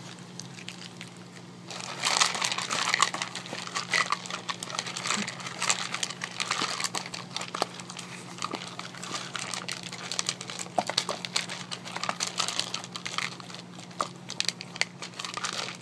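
Dog eating dry kibble from a plastic slow-feeder bowl while a hand moves through the food: kibble crunching and clattering against the plastic in a dense run of small clicks that starts about two seconds in.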